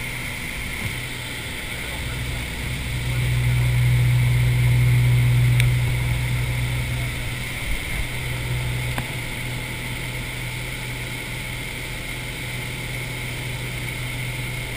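Small plane's engine and propeller running, heard from inside the cabin: a steady drone that swells louder for a few seconds about three seconds in, then settles back.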